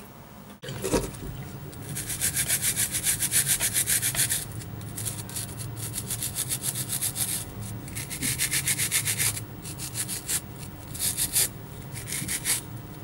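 A scrub sponge rubbed briskly back and forth between wet hands. The rapid, scratchy strokes come in several bouts with short pauses between, over a steady low hum.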